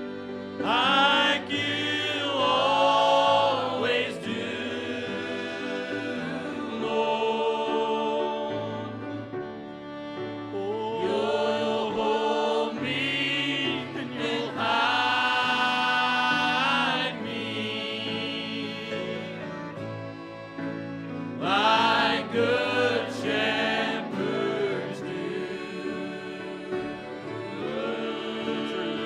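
Two men singing a slow gospel song as a duet in harmony, with acoustic guitar accompaniment; the voices come in long held phrases with short gaps between them.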